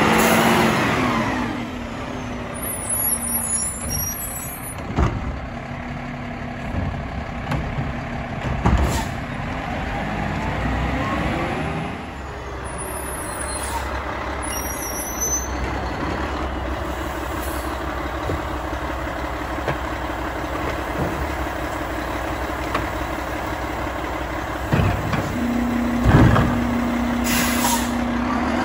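Mack LEU garbage truck's diesel engine running and revving as it works between stops, with air brakes hissing and a few sharp knocks and bangs from carts and the lifting gear, the loudest near the end.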